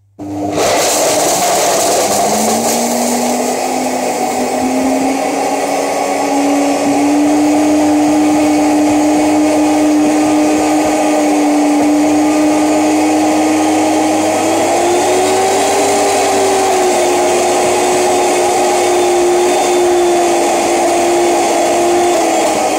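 A 1500 W high-speed blender's motor running flat out on frozen banana and blueberries: a loud, steady whine that starts about half a second in, rises in pitch over the first several seconds and lifts briefly around the middle. The motor is struggling with the thick frozen mix, which sticks and does not turn over, so only the blueberries get crushed.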